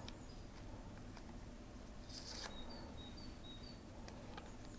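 Faint handling of adhesive tape and film. About two seconds in there is a short crackle of tape being pulled free, followed by a quick run of six faint high chirps.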